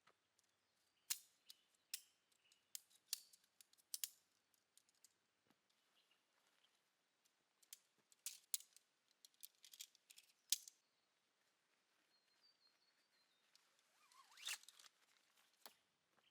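Camping gear being handled during packing up: scattered sharp clicks and light knocks in two clusters, then a short rustle near the end.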